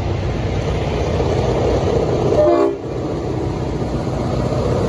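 Diesel-electric freight locomotives, BL31 leading, approaching with a steady low rumble, and a short horn blast about two and a half seconds in.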